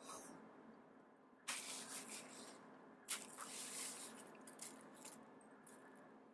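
Bubble-wrap bag crinkling and rustling as a cat paws at it, in a few bursts starting about a second and a half in, the sharpest at about three seconds.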